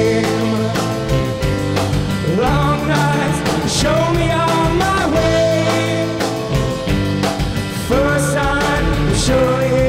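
Live rock band playing: electric guitar, bass guitar and keyboard over a steady beat, with a male voice singing.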